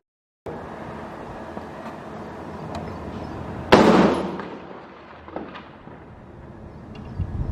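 A single loud explosion about four seconds in, sharp at the onset and rumbling away over about a second, over steady outdoor background noise.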